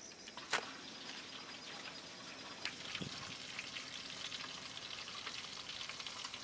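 Pieces of fish frying in hot oil: steady sizzling and crackling, with a sharp pop about half a second in and a dull knock about three seconds in.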